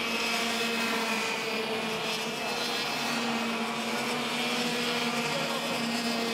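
Two-stroke racing kart engines running at high revs: a steady, buzzing drone.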